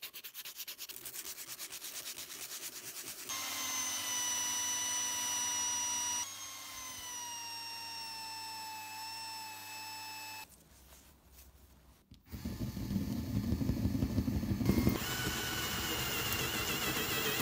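A curved metal part of a rusty bread cutter is hand-sanded in quick, even back-and-forth strokes. Then a power-driven buffing wheel whines steadily as it polishes the metal, its pitch slowly sagging under load. After a short, almost quiet gap, a drill runs loudly as a twist bit bores through the metal part into the wood beneath.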